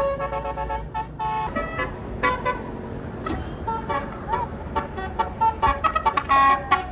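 Bus's Basuri telolet horn sounding a string of short toots at changing pitches, over a low engine rumble.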